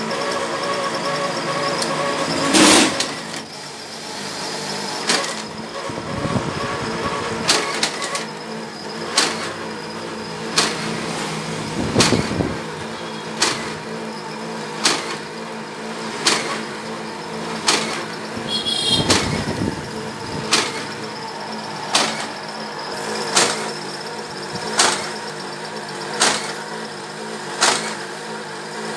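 Paper perforating and creasing machine built from an Epson Stylus Photo 1390 printer, its geared DC motor and feed rollers running steadily as a sheet passes through the rotary perforating blades. A loud knock comes a few seconds in, then a sharp click repeats about every one and a half seconds.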